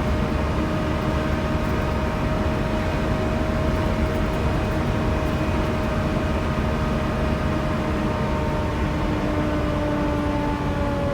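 Volvo B7TL double-decker bus heard from inside, its loud 'hoover' (the engine cooling fan) whining as a steady tone with higher overtones over the engine and road rumble, the whine sagging slightly in pitch near the end.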